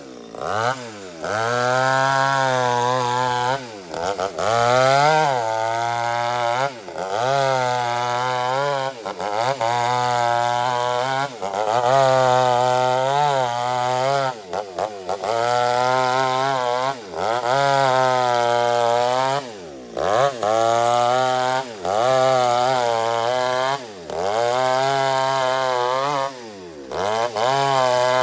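Two-stroke chainsaw ripping old teak lengthwise. The engine's pitch rises and sags under load over and over, about every two seconds, with brief dips in loudness between some strokes.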